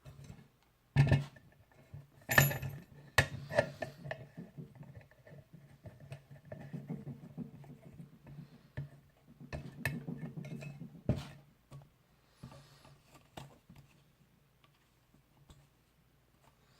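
Metal handling noise of a padlock and lockpicking tools being picked up and readied: several sharp clicks and clinks, most within the first dozen seconds, with light rattling and rustling between them.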